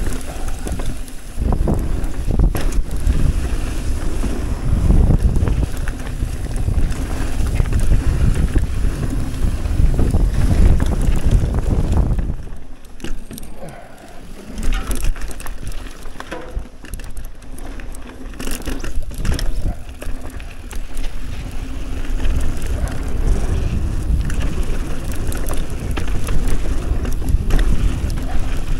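Mountain bike descending a trail, heard from a bike- or rider-mounted action camera: wind buffets the microphone over a low rumble of tyres on dirt, with frequent knocks and rattles from the bike over rough ground. It eases off for a couple of seconds about halfway through.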